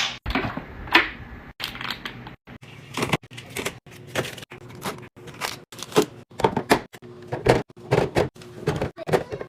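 Quick run of clicks, clacks and knocks from containers, jars and packages being handled, set down and stacked while stocking a fridge, several a second, broken by short abrupt gaps.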